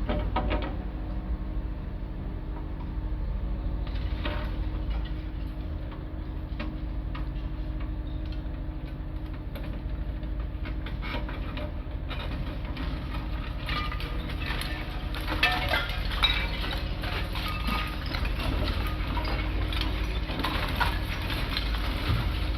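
Demolition machine's engine running steadily while it bites into a building, with cracking, clinking and clattering of breaking concrete and falling debris that grows busier about halfway through, including a couple of louder knocks.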